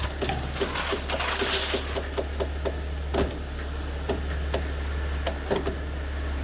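Heavy machinery running with a steady low drone, with irregular sharp metallic clicks and knocks, about two to three a second, as the rolled-over excavator is being turned.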